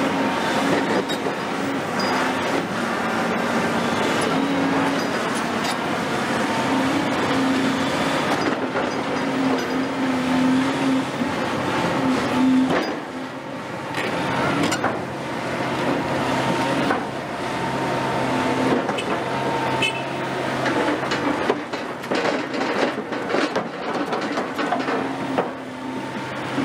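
Caterpillar 352F hydraulic excavator at work: its diesel engine runs under changing load, its note swelling and easing as the boom and bucket move. Sharp knocks and clatter of soil and stones against the steel bucket come mostly in the second half, as it digs and lifts.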